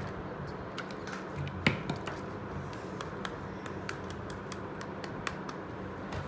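Light clicks and taps of small miniature steel toy kitchen pieces being handled and set down, scattered irregularly, with one louder knock about a second and a half in.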